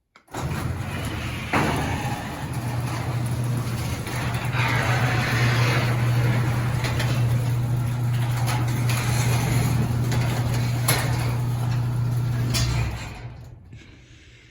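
Craftsman half-horsepower chain-drive garage door opener closing the door: a steady motor hum under the noise of the chain and the moving door, with a sharp click about a second and a half in and another near the end. The motor shuts off near the end and the sound dies away.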